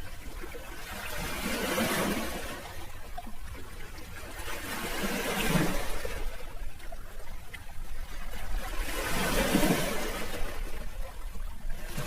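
Sea waves washing in and drawing back, swelling and fading about every four seconds.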